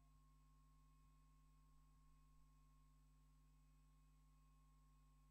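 Near silence: only a faint steady electrical hum with a thin steady high tone from the studio gear.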